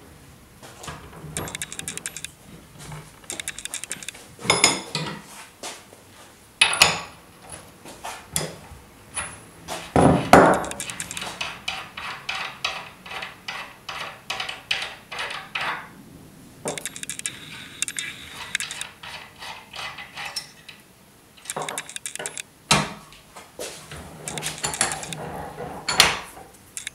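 Metal clinking, knocking and scraping as a diesel fuel injector is unscrewed and taken apart in a bench vise: nuts turned on their threads and steel parts knocked and set down, with the sharpest knocks about 5, 7 and 10 seconds in.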